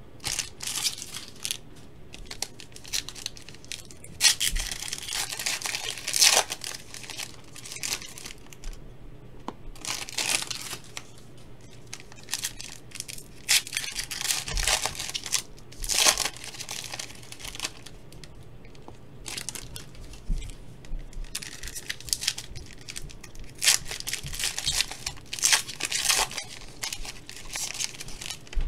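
Foil trading-card pack wrappers being torn open and crinkled by hand, in irregular bursts of crackly rustling with short pauses between.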